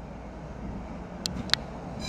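Vintage Høka tram rolling slowly along depot track: a steady low rumble of wheels and running gear, with two sharp metallic clicks close together near the end.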